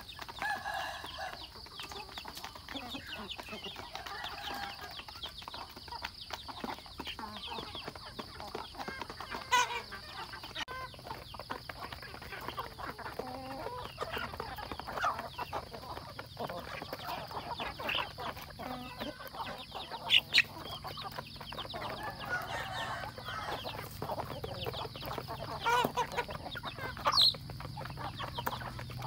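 A flock of chickens and roosters clucking steadily as they feed, over many quick clicks of beaks pecking grain from plastic plates, with a few short, louder calls standing out.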